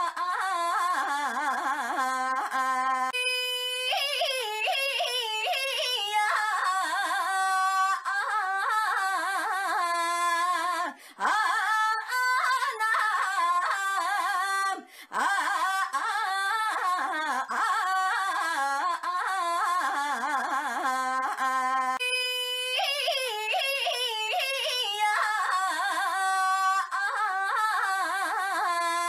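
A woman's high-pitched, drawn-out voice crying 'Ainya' again and again with wavering, sliding pitch, near-continuous with only brief breaks, as one short clip looped.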